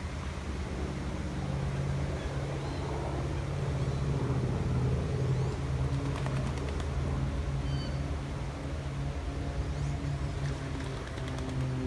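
Steady low engine drone, with a few faint bird chirps about three and eight seconds in.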